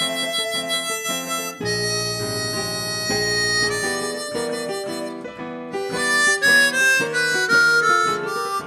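Harmonica playing a melodic instrumental solo, with a falling run of notes near the end.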